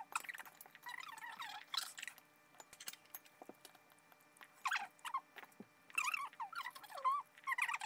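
Short, high-pitched squeaky chirps from a small animal, coming in irregular clusters of a few wavering calls each, loudest about five, six and seven seconds in.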